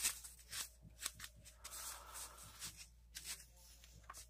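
Sheets of drawing paper rustling and flicking as a stack is leafed through by hand: a string of short, faint rustles.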